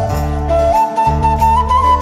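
Background music: a flute-like melody over a steady low bass accompaniment.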